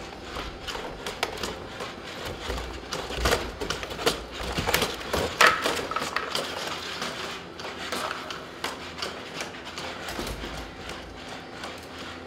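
Boston Dynamics Spot quadruped robot's feet clicking and tapping on a hard floor in an irregular patter, with knocks as its arm handles a door, over a faint steady whine. The knocks are loudest and closest together in the middle.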